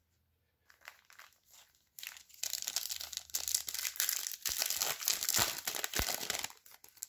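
Foil trading-card pack wrapper crinkling as it is torn open and handled, with a few faint ticks first and a couple of light knocks near the end.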